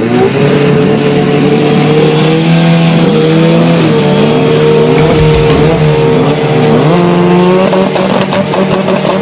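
Drag-racing car engines running at held high revs, several engine notes at once, with the revs dipping and climbing back several times.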